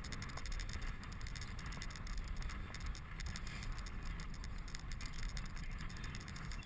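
Steady wind noise on the microphone, mixed with the tyre and road rumble of a recumbent bicycle rolling along an asphalt road.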